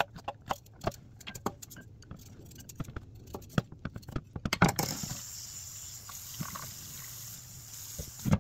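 Chef's knife chopping carrots on a bamboo cutting board: sharp knocks about three a second for the first few seconds. After that a steady hiss runs on, with a few light knocks as the diced carrot is gathered into a ceramic bowl.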